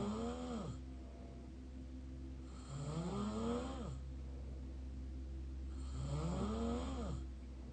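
Open-mouth snoring: pitched snores roughly every three seconds, each about a second long and rising then falling in pitch. The first is already under way at the start, and two more follow. A steady low hum runs underneath.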